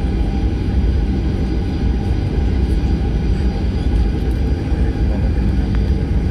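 Cabin noise inside a Boeing 737-800 as it taxis, with its CFM56 engines at low thrust: a steady low rumble and a faint steady whine on top.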